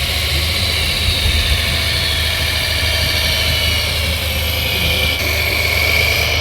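Radio-controlled model truck or construction machine running: a steady low engine hum with a high electric whine that slowly falls in pitch and levels off near the end.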